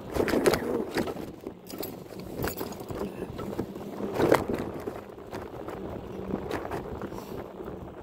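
Bicycle riding noise: a steady rumble of the ride, with several short rattles and clatters over bumps, the loudest about half a second in and about four seconds in.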